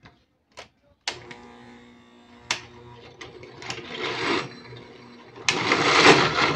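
Oster blender motor starting sharply about a second in and running at a low speed with a steady hum and a few sharp knocks, chopping tomatoes and onion in water. Near the end it is switched to a higher speed and becomes much louder as the mix is puréed.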